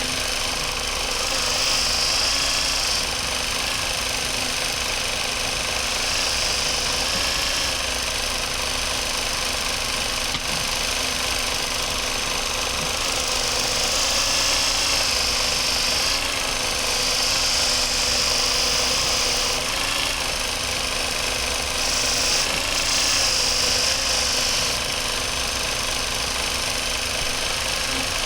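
Motor of a powered knife sharpener running steadily, its pitch sagging slightly at times. A high hiss comes and goes in stretches of one to three seconds as blades are ground against the abrasive.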